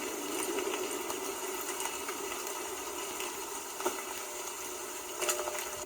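Electric wire burning after a tree fell on it, heard through a phone recording: a steady hiss with a faint hum and two sharp pops, the second near the end.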